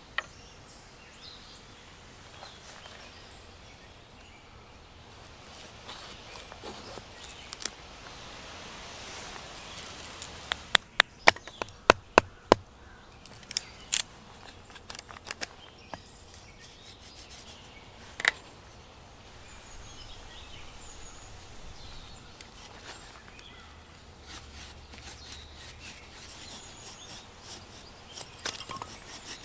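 Sharp knocks and clicks over a faint outdoor background: a quick run of loud ones about a third of the way in, then a few single ones spaced out after.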